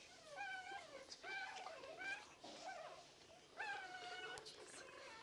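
Pekingese puppies whining: about five short, high-pitched whines, each wavering slightly in pitch.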